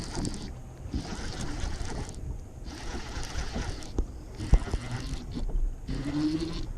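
A spinning fishing reel being cranked in spurts as a hooked fish is reeled in, with two sharp knocks against the boat about two-thirds of the way through.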